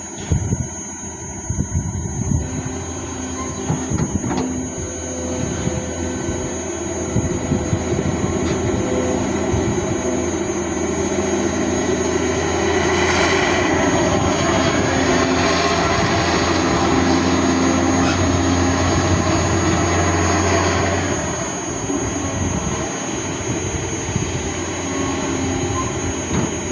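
Hydraulic excavator's diesel engine running steadily, with a few knocks in the first seconds; it grows louder for about eight seconds in the middle, then eases back.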